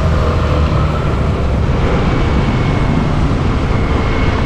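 Suzuki Burgman Street EX 125 scooter on a test ride: a loud, steady rushing rumble over its running engine, with a faint whine that rises slightly in pitch.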